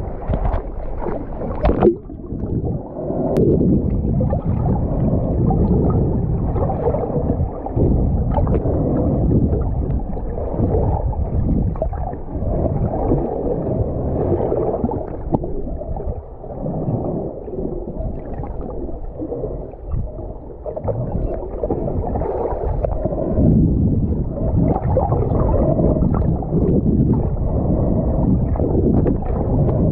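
Muffled underwater water noise picked up through an action camera's housing: a dull, surging rush and gurgle. A few sharp splashes come in the first two seconds, while the camera is at the surface.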